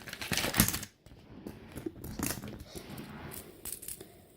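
Rustling and clicking handling noise close to the microphone as a gold fidget spinner is held and turned in the fingers, loudest in the first second.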